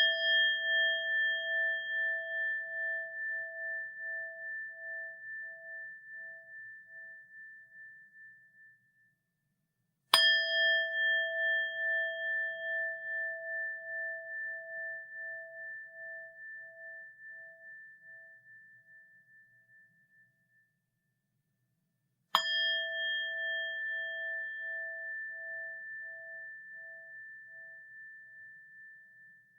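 A Buddhist rin (bowl bell) ringing out after a strike, then struck again about 10 seconds in and again about 22 seconds in. Each strike rings with a few clear tones that fade slowly over several seconds with a steady wavering pulse.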